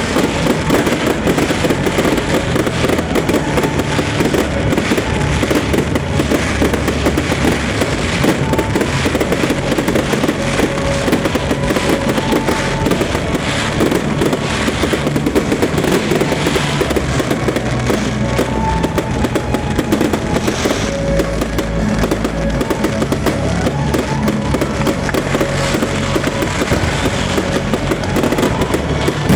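Fireworks bursting and crackling without pause, over loud music with a moving bass line.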